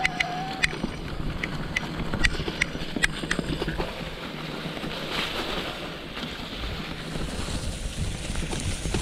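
Mountain bike tyres rolling over dry fallen leaves on a dirt trail: a steady rustling rush mixed with wind on the microphone, with a run of sharp ticks and rattles in the first three seconds.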